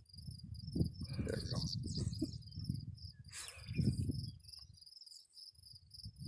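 Insects, crickets by the sound, chirping in a steady high pulsing trill. Irregular low rumbling noise runs under it and dies away about two-thirds of the way through.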